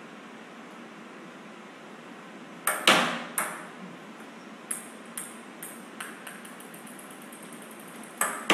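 A sharp strike, then a small hard ball bouncing on a hard floor. The bounces come faster and fainter until it settles, and a second run of bounces starts near the end.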